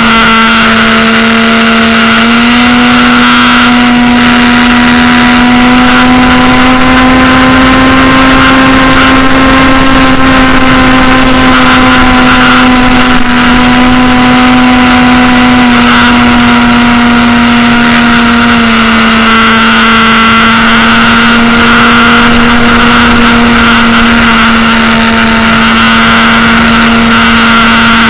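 AXN model plane's electric motor and propeller whining steadily close to the onboard camera, its pitch stepping up about two seconds in, easing down twice in the second half and rising again at the end as the throttle changes. Wind rushes over the microphone throughout.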